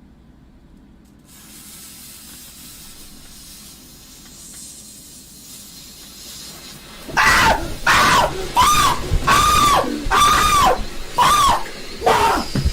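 A lit indoor firework fountain hissing steadily. About seven seconds in, loud high wails start, each rising then falling, repeated about once a second and much louder than the hiss.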